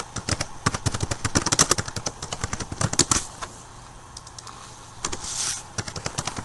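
Typing on a computer keyboard: a fast run of key clicks for about three seconds, then a few scattered keystrokes, with a short hiss about five seconds in.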